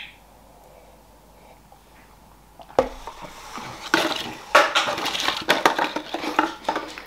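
A brief sip from a mug, then quiet. About three seconds in comes a sharp knock, followed by several seconds of dense clattering and rustling handling noise close to the microphone.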